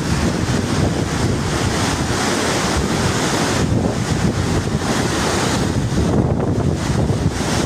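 River in flood, its swollen water rushing loudly and steadily, with wind buffeting the microphone.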